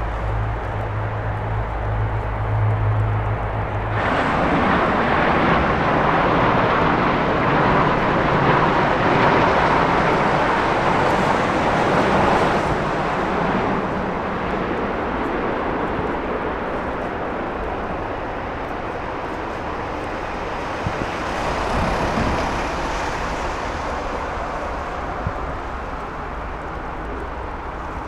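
A jet airliner's engine roar as it passes, starting abruptly about four seconds in after a low hum, loudest for the next several seconds and then slowly fading.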